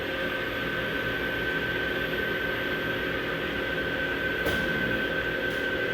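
Electrovert Vectra ES wave solder machine running: a steady mechanical whir with a constant high-pitched whine over it.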